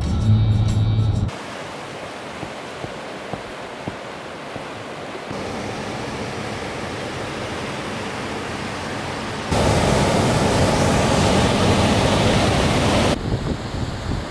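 Rushing white water of a river running over rapids and a small waterfall, a steady even rush that jumps louder about nine and a half seconds in. It is preceded by about a second of in-car sound, and near the end it goes uneven with wind buffeting the microphone.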